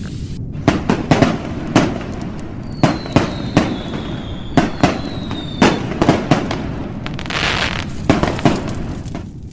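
A string of sharp bangs and pops at irregular intervals, with a thin whistling tone that falls slowly in pitch through the middle and a hissing swell near the end.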